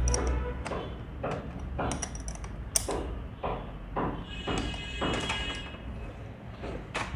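Hand tool working a nut on an old sewing machine: a regular series of short metallic clicks and scrapes, about two a second, with one sharper click about three seconds in.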